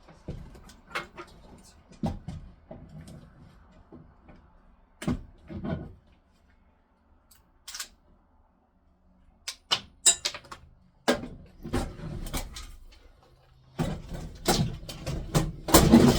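Hands handling hardware and tools: scattered knocks, clicks and clatter, with a quiet stretch in the middle and a busier run of knocking near the end.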